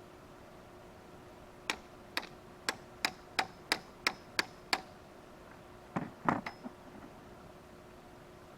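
A run of about nine sharp taps, about three a second, then a quick cluster of heavier knocks, with a faint steady hum underneath.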